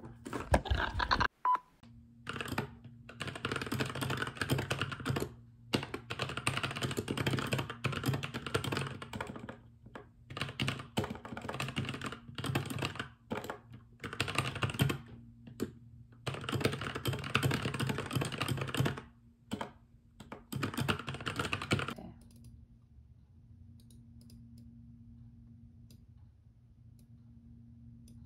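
Fast typing on a compact mechanical keyboard: dense runs of key clicks lasting a few seconds each, broken by short pauses. A few louder knocks come in the first second or two, and the typing stops about three-quarters of the way through, leaving a faint steady hum.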